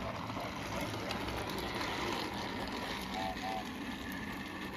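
Battery-powered toy train engine running along plastic track, a steady motor whir and rattle. Two brief chirps sound about three seconds in.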